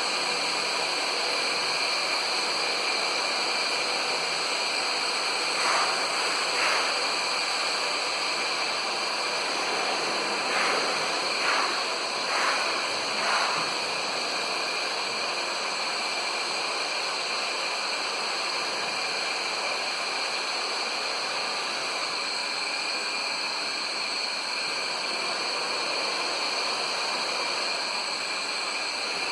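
Electric welding arc running steadily on a vertical-up outside corner weld: an even hiss with a steady high whine, and a few short crackles about six seconds in and again between about ten and thirteen seconds.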